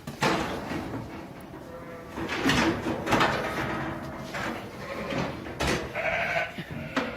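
Sheep bleating several times, with wavering calls, amid knocks and clatter of handling equipment.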